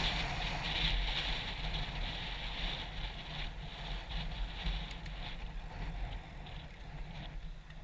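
Wind noise on the camera and the rumble of a downhill mountain bike rolling over dirt, a steady rushing noise that dies down gradually.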